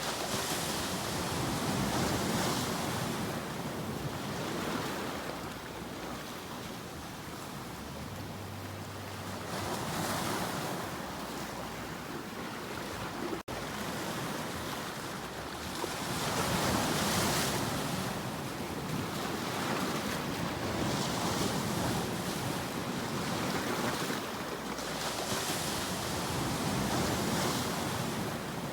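Ocean surf: waves breaking and washing in, the sound swelling and falling back every few seconds. A split-second break in the sound comes about halfway through.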